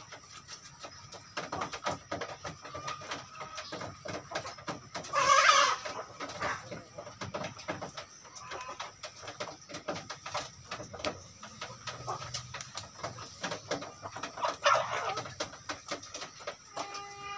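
Village chickens pecking grain off a dirt floor, their beaks tapping in quick, irregular clicks, with soft clucking. One loud squawk comes about five seconds in and a shorter one near fifteen seconds. A steady pitched tone starts just before the end.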